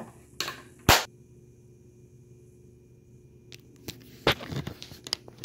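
Handling noise from the camera being picked up and moved: a sharp knock about a second in, a quiet stretch, then another knock and a run of rustles and clicks near the end.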